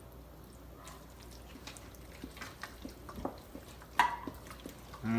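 A utensil stirring a thick mix of sour cream, pudding and crushed pineapple in a bowl: soft scrapes and light taps, with one sharper knock about four seconds in.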